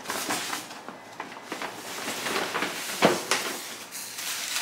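Packing paper rustling and crinkling as a wrapped item is pulled out by hand, with one sharp click about three seconds in.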